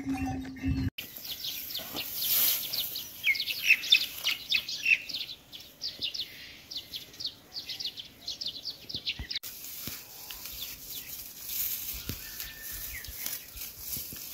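Small birds chirping: a dense run of short, quick, falling high notes that thins to fainter, sparser calls after about nine seconds. The first second holds a steady ringing tone before an abrupt change.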